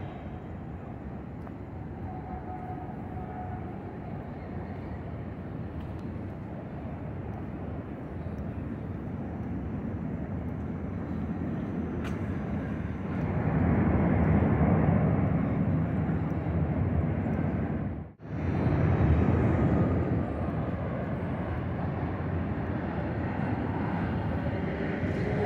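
Low, steady rumble of distant city vehicles. It swells louder for several seconds about halfway through, cuts out for an instant, then eases back.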